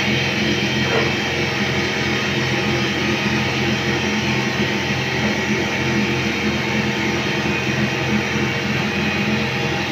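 Steady drone of a running machine: a low hum under a rough hiss, unchanging throughout.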